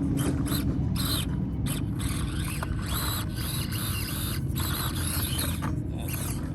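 Small 1/24-scale RC rock crawler's electric motor and gearbox whining in short spurts, the pitch rising and falling as the throttle is worked on and off.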